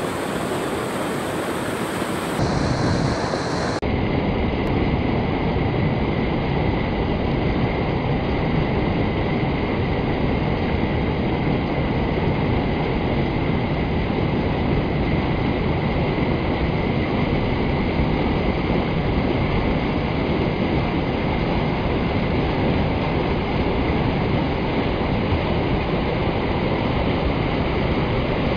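River water pouring over a low concrete weir and churning through a narrow concrete channel: a steady rushing of white water.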